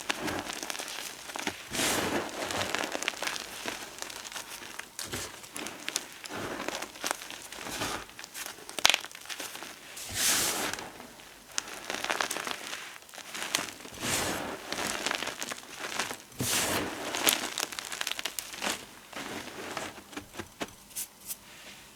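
Gym chalk and potato flour being crushed, crunching and crumbling in irregular crackly bursts that swell and fade, thinning out near the end.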